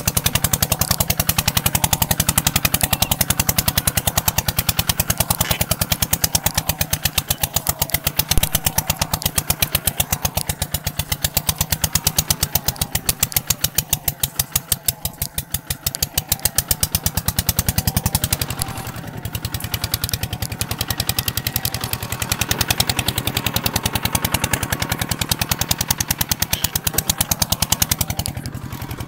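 Kubota ZT180 single-cylinder diesel engine running steadily with a rapid, even chugging beat, easing off briefly about two-thirds of the way through and again near the end.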